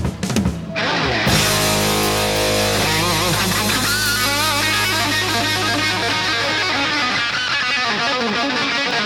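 Background music: electric guitar rock with a steady, dense sound, starting with a few sharp hits before settling into sustained playing about a second in.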